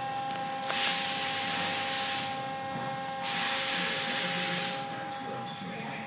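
Two loud bursts of hissing, like a jet of air or fluid under pressure, each about a second and a half long. A steady two-note machine whine runs underneath.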